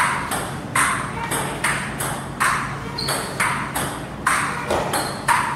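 Table tennis rally: the ball clicking back and forth off the table and the paddles, about three sharp clicks a second, over a steady low hum.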